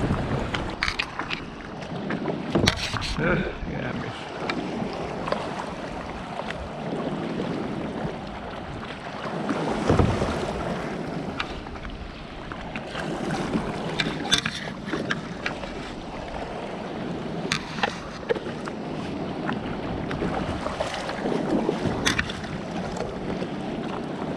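Small waves lapping and splashing against a plastic kayak's hull, with wind buffeting the microphone and scattered small clicks and ticks throughout; a louder swell of water noise comes about ten seconds in.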